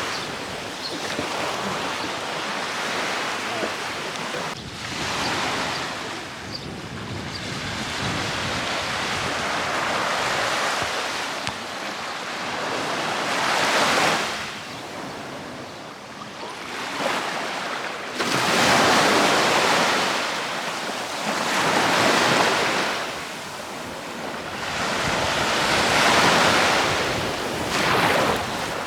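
Sea surf breaking on a beach, waves surging and washing back every few seconds, the surges growing stronger in the second half.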